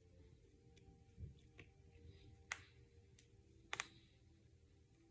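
Knuckles and finger joints cracking: a few sharp pops, one loud one about halfway through and a quick double pop a little over a second later.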